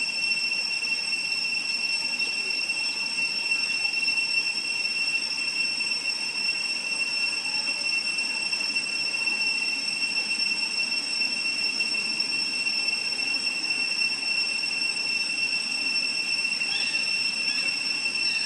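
Steady, unbroken high-pitched drone of insects, most likely cicadas or crickets, holding one pitch throughout.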